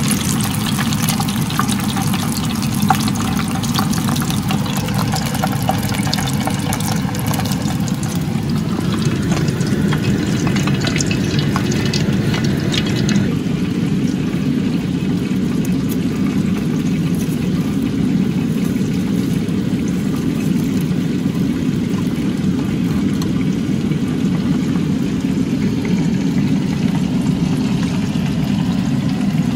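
Arancini deep-frying in hot oil, with a dense sizzling crackle that thins out about halfway through. A steady low rumble runs underneath.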